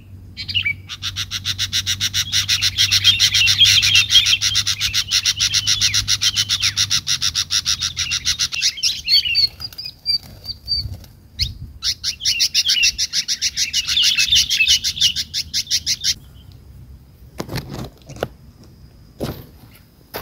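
Sooty-headed bulbul caught on a lime stick, fluttering its wings in rapid even beats with chirps over them, in two long bouts (about eight seconds, then about four) with a pause of scattered chirps between. A few dull knocks near the end.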